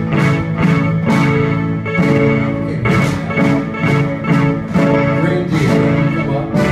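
Children's rock band playing live: a drum kit keeps a steady beat of about two hits a second under sustained electric guitar chords.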